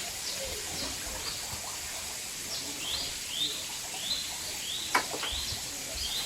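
A bird chirping over and over in the jungle, short high notes about two a second, each sliding down and then levelling off. A single sharp click comes about five seconds in.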